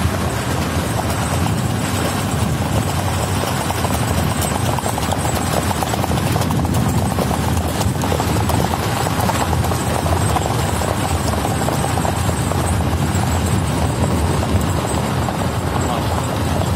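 Hoofbeats of ridden horses moving fast over sand at the revaal gait, over a steady low rumble.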